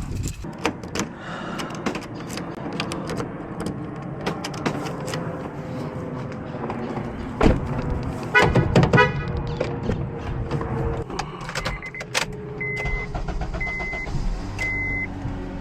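Key and car handling during new-key programming in a 2012 Honda Accord: scattered clicks and jingling, with a brief rapid rattle about halfway through. Near the end, a string of short, evenly spaced electronic beeps sounds and a steady low hum starts.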